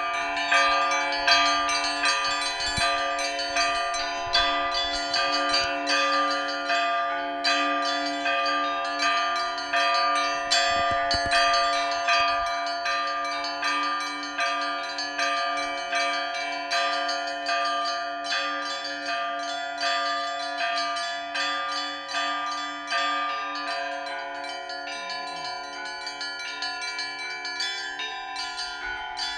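Orthodox monastery church bells rung together in a continuous peal: many bells of different pitches struck in quick succession, several strokes a second, over the steady ring of the lower bells. The peal grows somewhat quieter in the last few seconds.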